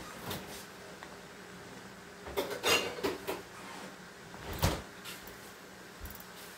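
Kitchen clatter off to the side: a quick cluster of knocks and clinks about two and a half seconds in, then one sharp knock a couple of seconds later, like dishes or a cupboard being handled.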